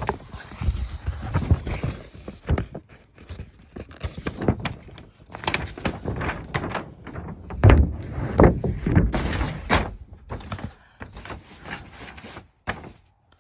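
A large paper poster being unfolded by hand: irregular crinkling, rustling and crackling of the paper, with sharp knocks and flaps as it is handled. It is loudest around the middle.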